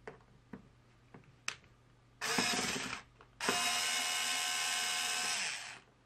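Cordless electric screwdriver backing out the small mounting screws of an XLR port panel: a few clicks as the bit is set in the screw head, then a short burst of the motor and a longer, steady motor whine that stops abruptly.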